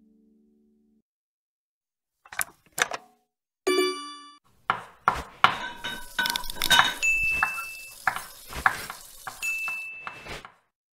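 Sound effects for an animated logo: two quick whooshing hits, then a bell-like ding, then a busy run of clinks, knocks and swishes with a short high beep twice near the end.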